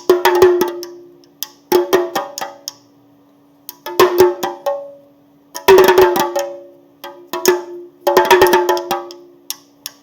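Chinese drum struck in bursts of several quick hits every second or two, each burst ringing with a clear pitched tone as it dies away. A faint steady hum lies underneath.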